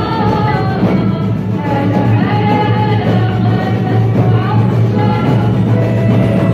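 Live Moroccan-style group song: several young singers with microphones, accompanied by an oud and a hand drum.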